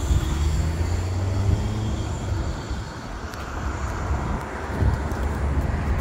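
Road traffic: cars passing on a wide city street, a steady low rumble of engines and tyres that dips briefly and swells again near the end.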